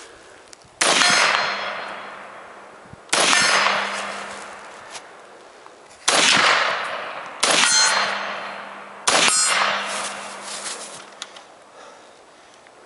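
Five shots from an M1 Carbine (.30 Carbine, semi-automatic) fired at uneven intervals of one to three seconds, each followed by a long ringing decay.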